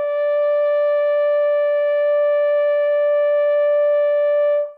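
Fürst-Pless hunting horn blowing one long, steady note: the fourth of its five tones, the upper E (the horn's fifth natural harmonic), held for nearly five seconds and stopped cleanly near the end.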